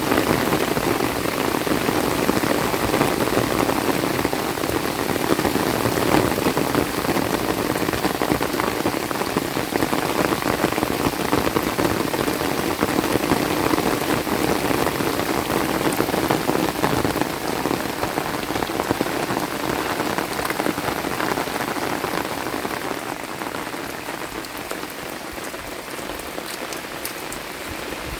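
Heavy rain falling steadily on the ground and vegetation, a dense even patter that eases off slightly near the end.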